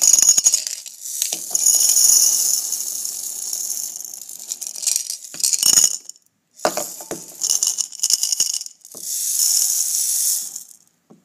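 BBs and marbles rattling together in a container as they are mixed, in several bursts with brief pauses.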